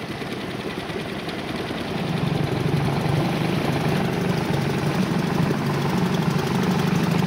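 Small outboard motor on an inflatable boat running steadily, getting louder about two seconds in.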